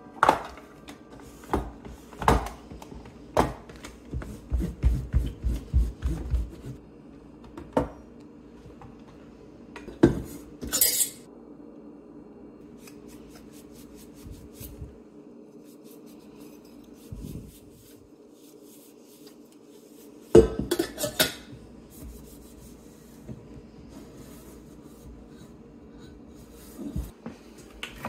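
Clicks, knocks and clatter of hard plastic and metal kitchen appliances being handled and wiped on a countertop, with a brief rubbing sound about ten seconds in and a cluster of louder knocks about twenty seconds in.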